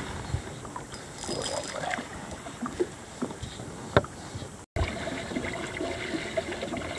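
Water lapping against a small fishing boat's hull, with wind and a few light knocks. The sound drops out briefly a little past halfway, then resumes with a faint steady hum under the water noise.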